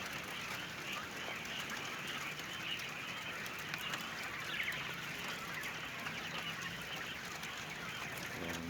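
A flock of caged young laying quail chirping and calling together in a dense, steady chorus.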